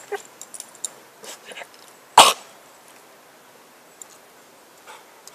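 Cocker spaniel gnawing a wooden log: faint crunches and clicks, then a single short, loud cough-like burst about two seconds in.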